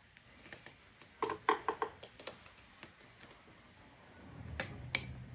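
Small plastic clicks and knocks from handling a car taillight and plugging in its wiring connectors: a quick cluster of light knocks about a second in, then two sharp clicks near the end as a connector snaps home.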